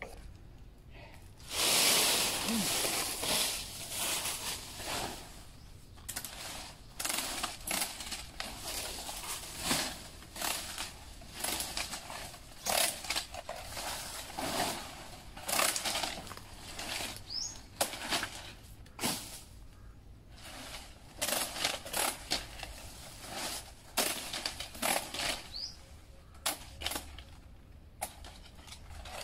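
A short scraping rustle, then a series of irregular knocks and clatters, about one or two a second, like hard objects being handled.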